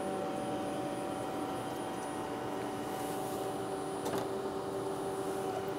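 Steady hum with several held tones from the running mass spectrometer and lab equipment. A faint short knock comes about four seconds in as the instrument's front-end torch housing is pushed shut.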